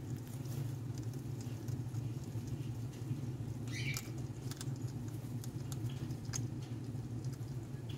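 Faint scattered clicks and rustles from a baby hedgehog nosing at its water dish in wood shavings, over a steady low hum.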